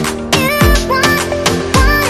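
Background music with a steady beat: deep sliding bass hits twice and a melody line that bends in pitch.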